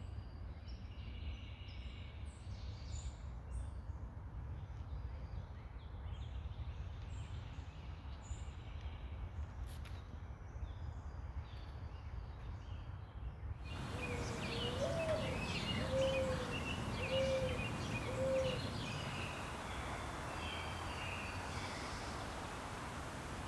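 Songbirds chirping and singing over a low steady background rumble. Partway through, the background turns noisier and a mourning dove coos: one note that swells, then three even lower notes.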